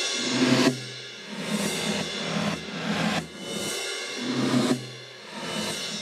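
Reversed reverb of a drum kit, heard alone: swells of cymbal and hi-hat wash that build up and then stop abruptly, each one leading into the hit instead of trailing after it. The reverb was fed from the overhead mics with everything below about 800 Hz filtered out.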